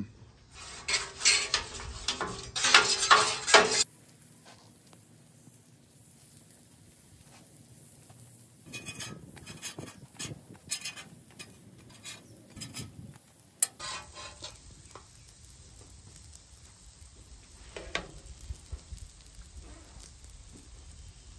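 A metal spatula scrapes and taps on a flat-top griddle while corn fritters are flipped, with the frying fritters sizzling faintly. A louder run of clattering and scraping comes in the first few seconds.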